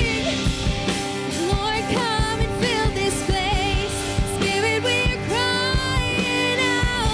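Worship song played by a band, with a lead singer over sustained chords and a steady drum beat.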